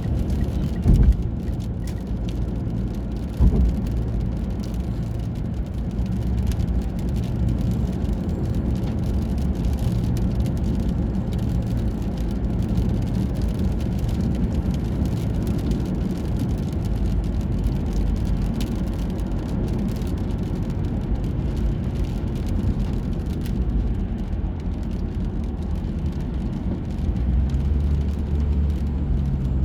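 Steady low rumble of a car or road traffic, with two brief knocks about one second and three and a half seconds in.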